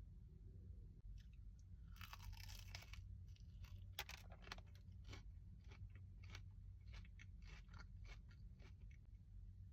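Close-miked eating of crunchy food: one crackly bite about two seconds in, then a run of sharp crunching chews, about three a second.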